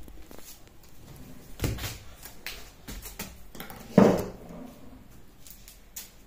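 Scattered light knocks and clicks of handling in a small room, with one louder thump about four seconds in.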